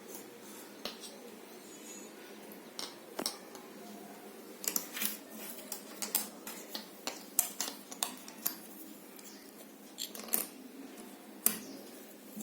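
Jigsaw puzzle pieces being handled and set down, making a string of small irregular clicks and taps, busiest in the middle and with a couple more near the end.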